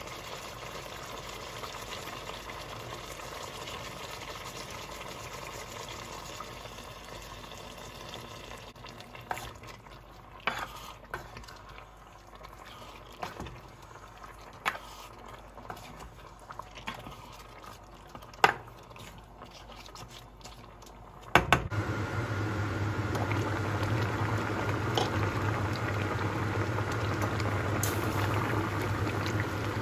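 Squid in soy sauce bubbling in a stainless steel saucepan, with a few sharp scrapes and clinks of a spatula against the pan as the squid is stirred. About two-thirds of the way through it turns to a louder, steady hard boil with a low hum underneath.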